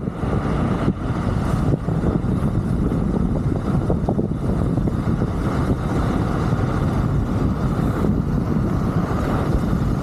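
Steady rushing wind on the microphone and tyre rumble from a Wolf King GT Pro electric scooter coasting fast downhill with the motors not driving.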